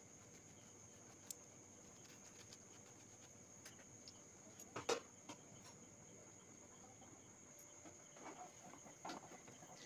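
Near silence with a faint steady high whine, broken by a few light knocks of a steel slotted spoon against a frying pan, the loudest about five seconds in.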